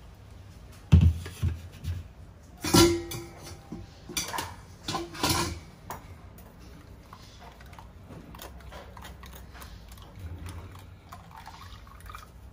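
Kitchen clatter: pots, a lid or utensils knocked and set down in a handful of clanks between about one and six seconds in, one of them ringing briefly.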